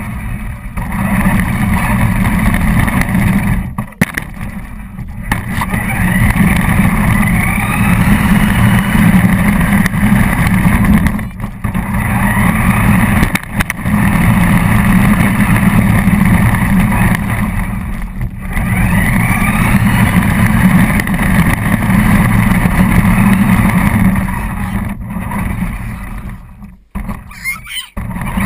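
RC car motor running hard, its pitch rising and falling with the throttle, with a few brief cut-offs where the throttle is let off.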